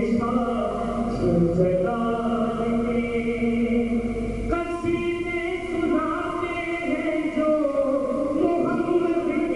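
A man singing a devotional chant into a microphone, drawing out long held notes. The melody shifts to a new pitch about halfway through.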